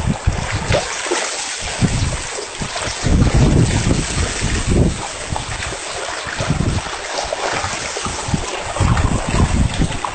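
Wind buffeting the microphone in uneven gusts on a moving boat, over a steady rush of splashing water.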